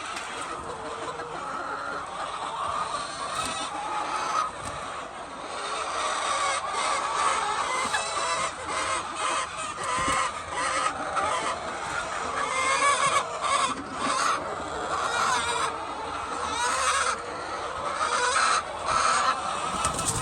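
A large flock of laying hens clucking and calling all at once, a dense continuous chatter, with scattered sharp clicks among it.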